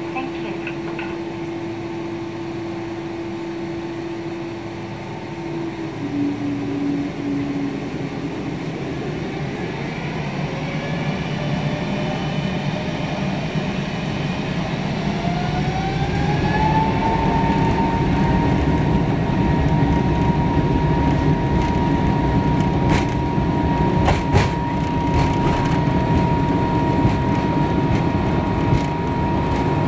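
Jet airliner engines spooling up to takeoff thrust, heard inside the cabin: a whine that rises for several seconds, about ten seconds in, then holds steady as the noise grows, over the rumble of the wheels on the runway. A few sharp knocks come near the end.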